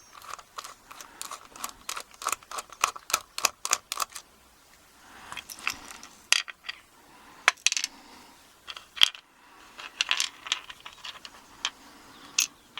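Small metal clicks and clinks from taking apart a Sesamee 900 padlock to undo its screw. A fairly even run of quick clicks over the first few seconds is followed by scattered clinks of metal parts and tools.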